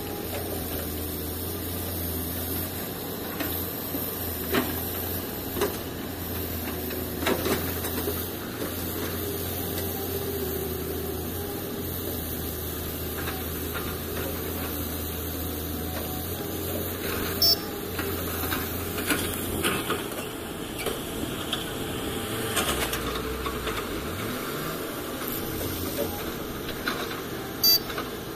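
Diesel engines of a Volvo crawler excavator and a Tata dump truck running steadily, with a few sharp knocks and clatters as ore is dumped from the excavator's bucket into the truck's steel bed. About twenty seconds in, the steady low hum gives way to an engine note that rises and falls.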